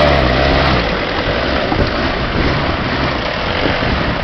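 Engine of an off-road 4x4 running, stuck in a muddy rut. A steady low hum for about the first second gives way to a rougher, noisier rumble.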